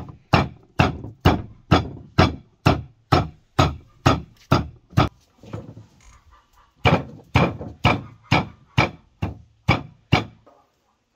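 Meat cleaver chopping raw meat on a wooden cutting board: steady blows about two a second, with a short pause about halfway, stopping near the end.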